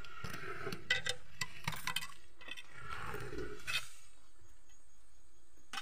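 Light clicks, clinks and knocks from someone clambering through a rock cave passage, scattered over the first four seconds, then quieter.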